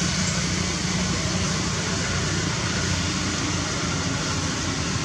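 Steady background noise: an even hiss with a low hum underneath, with no distinct events.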